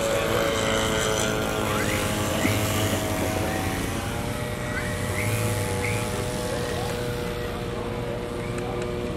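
Engines of a twin-engine radio-controlled scale model warplane running steadily at taxi throttle, with a slight drift in pitch.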